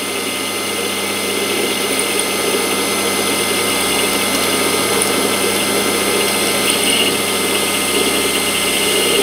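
Warco WM180 mini lathe running steadily while its tool takes a heavy 2 mm depth-of-cut turning pass along a small bar, the motor and spindle sound mixed with the sound of the cut.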